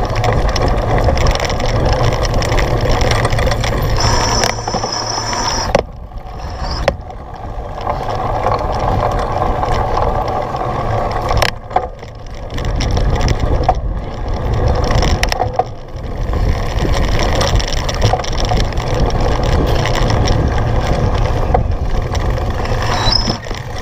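Cyclocross bike ridden hard over rough, muddy ground: heavy wind buffeting on the microphone over the rattle of the bike and tyres, with a few brief lulls and a short high squeal about four seconds in.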